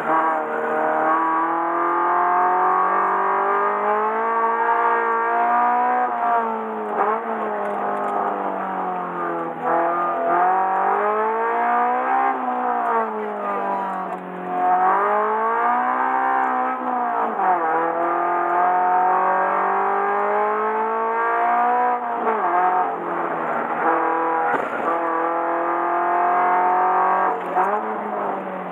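Subaru BRZ's flat-four engine working hard around a circuit lap, its pitch climbing under acceleration and dropping sharply every few seconds at gearshifts and braking.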